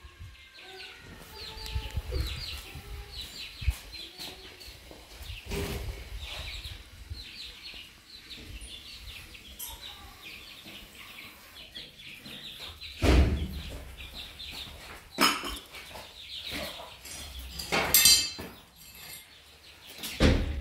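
Chickens clucking: many short, high calls repeating throughout, with a few loud thumps in the second half.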